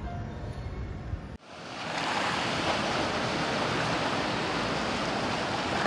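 Background music cuts off about a second and a half in, giving way to steady ocean surf: waves breaking and washing along the shore.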